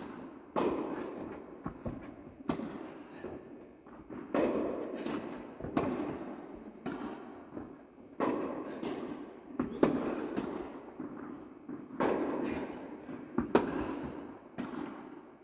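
Tennis ball struck back and forth with rackets in a rally on an indoor court. Each hit is a sharp pop with a long echo in the hall, the louder ones every one and a half to two seconds, with softer ball bounces between them.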